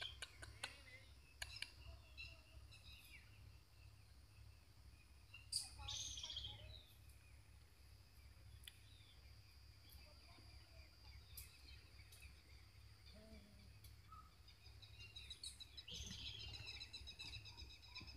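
Quiet rural outdoor ambience with birds chirping: a short burst of chirps about six seconds in and a run of chirping near the end, over a steady low rumble.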